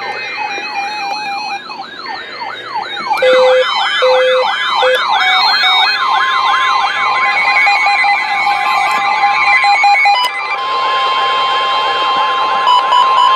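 Several weather-alert receivers going off at once for a new warning: overlapping siren-like alarms sweeping up and down about four times a second, mixed with steady electronic tones and a few short beeps. From about six seconds in, a steady single tone near 1 kHz, typical of the NOAA Weather Radio warning alarm tone, sounds under them.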